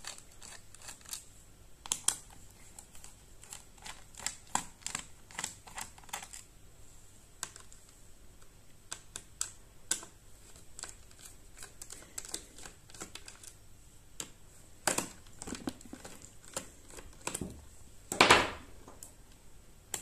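Irregular light clicks and ticks of a Phillips screwdriver turning and loosening the bottom-cover screws of a Dell Latitude 7290 laptop, with one louder, brief scraping noise near the end.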